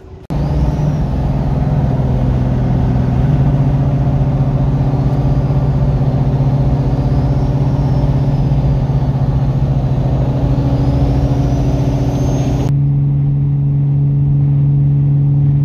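Car engine and exhaust droning steadily at cruising speed, heard from inside the cabin, with the pitch holding constant. About 13 seconds in the sound cuts to another steady drone with a duller top.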